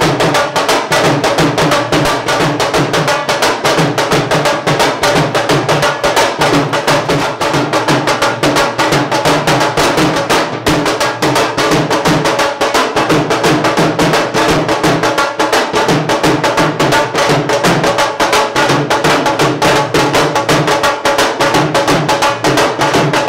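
Dhol drum played in a fast, even beat, with dense strokes repeating without a break.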